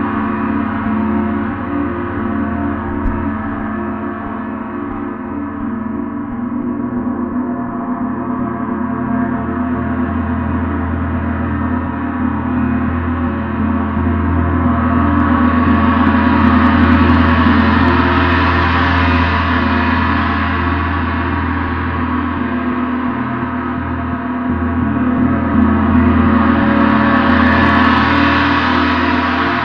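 A gong played continuously, sustaining a dense wash of many overlapping tones. It swells louder and brighter twice, once around the middle and again near the end.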